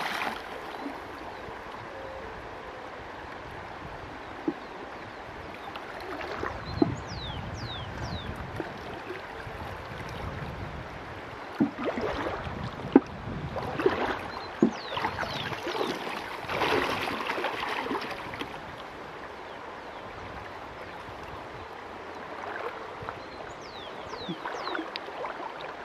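Shallow river water sloshing and splashing as hands grope along the riverbed, over the steady rush of the flowing river, with the splashing heaviest in the middle stretch and a few sharp knocks. A few small groups of high, falling whistles sound over it.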